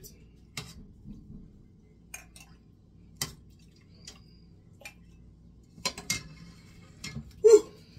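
A ladle clinking and tapping against a cooking pot and a mug while juice is ladled out: a scatter of short, sharp clinks, the loudest about three seconds in and near the end.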